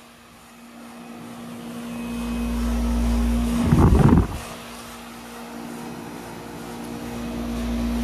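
Outdoor heat pump condensing unit running: a steady electrical hum from the compressor under the fan's airflow. The airflow is heard as low wind noise on the microphone. It swells and peaks in a brief loud gust about four seconds in.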